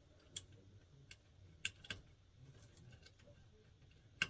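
A few sparse, light clicks and taps from hand work on low-voltage wiring at a control board's screw terminals, the sharpest click near the end.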